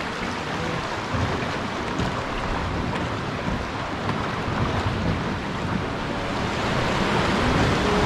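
River water rushing around a boat's hull, with wind on the microphone. The noise grows a little louder near the end.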